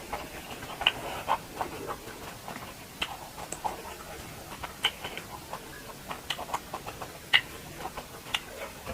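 Close-miked chewing and wet mouth smacks from a person eating duck curry: short, sharp clicks and smacks at irregular intervals, the sharpest about a second in and again near seven seconds.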